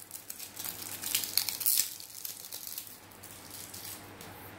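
Crackly rustling of packaging as batteries are handled, loudest in the first two seconds, then dying down to faint rustles.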